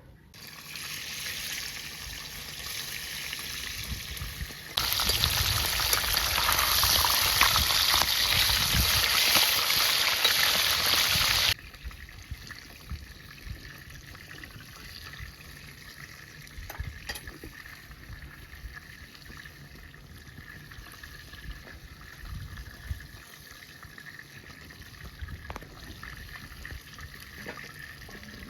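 Water running or pouring in a kitchen. It is loudest for about seven seconds near the start, starting and stopping abruptly, then gives way to a quieter steady hiss with a few light clinks.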